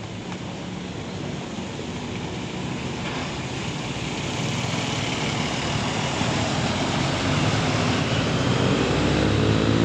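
A bus approaching, its engine and road noise growing steadily louder.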